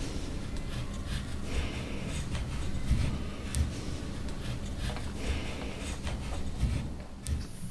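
A black crayon scratching across a wall in short drawing strokes, over a low steady hum, with two sharp clicks, one midway and one near the end.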